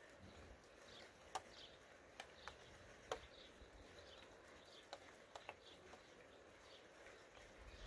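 Near silence: quiet outdoor ambience with faint high chirps and a few scattered sharp ticks.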